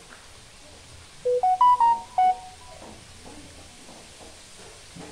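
A short electronic chime: about five clean beeping tones stepping up in pitch and then back down, lasting about a second, a little over a second in.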